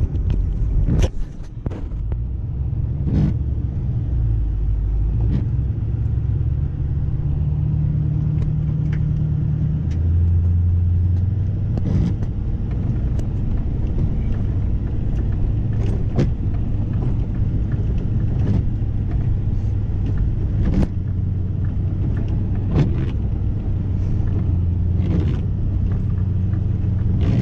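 Ford F450 Super Duty's Power Stroke diesel engine, heard from inside the cab, running steadily at low speed; its drone shifts to a different pitch about ten seconds in. Short sharp knocks come every couple of seconds.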